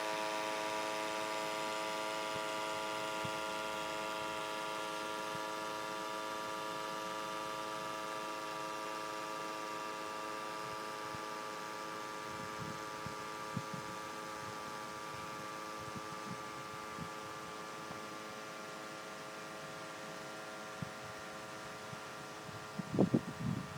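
RC model fishing boat's drive motor humming steadily at a constant pitch and slowly growing fainter. Wind buffets the microphone near the end.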